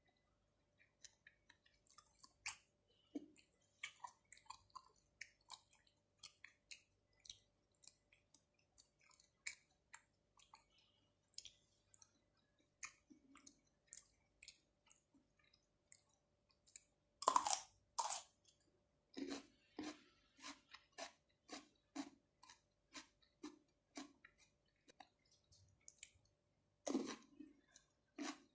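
Close-miked chewing of fresh shrimp and octopus with cucumber: sticky, wet mouth clicks throughout, with two louder bites about seventeen seconds in and near the end, followed by steady chewing about twice a second.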